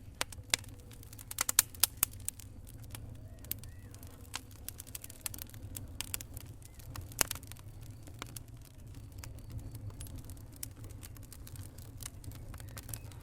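Wood fire burning in a fireplace: irregular sharp crackles and pops, a quick cluster in the first two seconds and a single loud pop about seven seconds in, over a steady low rumble of the flames.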